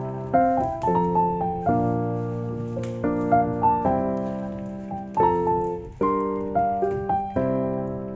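Background piano music: a gentle melody played over held chords.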